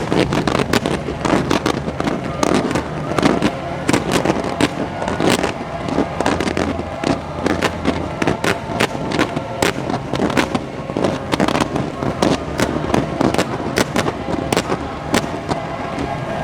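Fireworks display: a dense, irregular run of sharp cracks and pops, several a second, going on without a break.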